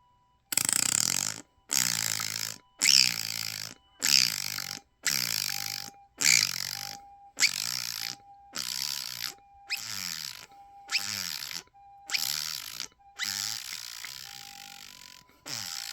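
Mouth beatboxing: a loud, noisy vocal beat struck about once a second in short phrases. Under it, faint and steady, a Japanese ambulance siren goes back and forth between its two tones.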